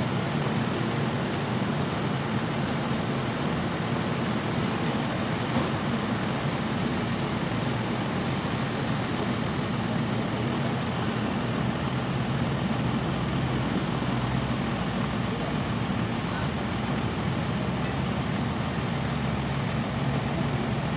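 Mercedes-Benz Unimog Proto trial truck's engine running steadily without revving up as it crawls slowly over dirt mounds.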